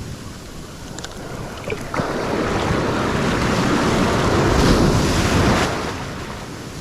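Ocean surf: a wave breaks about two seconds in and rushes up the beach, swelling and then fading near the end, with wind buffeting the microphone throughout.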